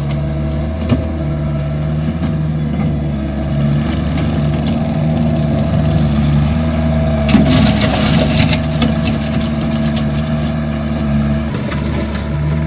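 Vermeer mini skid steer's engine running steadily while it works gravel, with a short burst of clatter about seven seconds in.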